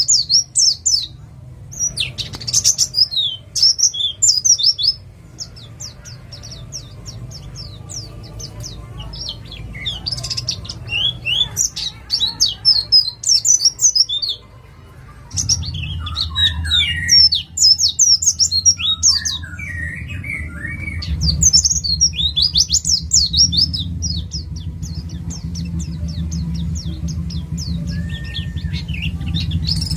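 Forest-caught East Java white-eye (pleci) singing: long runs of fast, high chirping notes broken by brief pauses, with a few lower notes in the middle. A steady low hum runs underneath and gets louder about halfway through.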